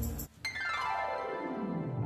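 Background music cuts off, and after a short gap a single synthesizer-like tone glides steadily downward in pitch for about a second and a half.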